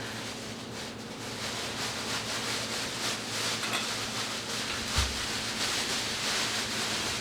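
A steady hiss, like air or steam rushing, with one dull low thump about five seconds in.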